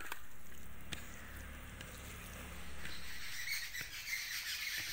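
A hand squishing raw boneless chicken pieces through a wet chilli and ginger-garlic marinade in a glass bowl: soft squelching with a few faint clicks.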